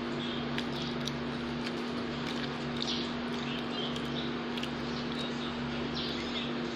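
A steady low hum and hiss, with short high chirps and faint clicks scattered through it.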